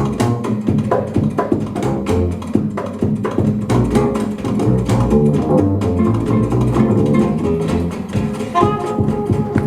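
Gypsy jazz with the double bass to the fore, its deep notes carrying the line over the steady strummed chords of the rhythm guitar.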